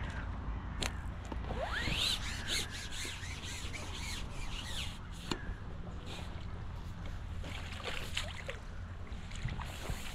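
A small hooked fish splashing and thrashing at the water's surface as it is played on a pole and drawn to the landing net, a run of short sharp splashes that thin out after the first few seconds, over a steady low rumble.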